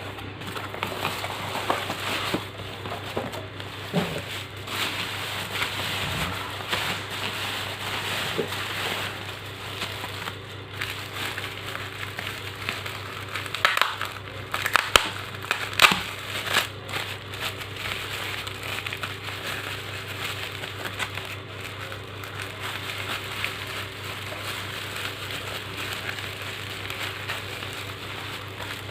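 Plastic parcel packing being pulled open and unwrapped by hand: continuous crinkling and crackling, with sharper rustles and rips now and then.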